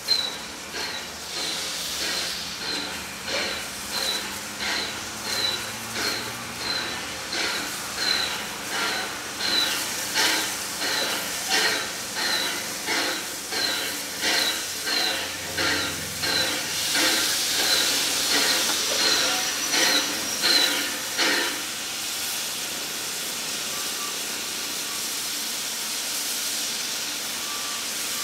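NSW 32 class 4-6-0 steam locomotive 3237 working slowly with an even exhaust chuff, about one and a half beats a second, growing louder as it draws near. About 21 seconds in, the beats stop and a steady hiss of steam carries on.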